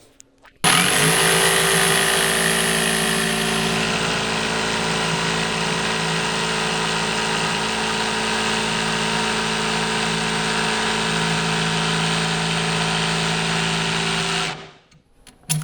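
Electric jigsaw cutting through a wooden cabinet panel from a drilled starting hole. It starts abruptly, runs at a steady speed for about fourteen seconds, then winds down and stops near the end.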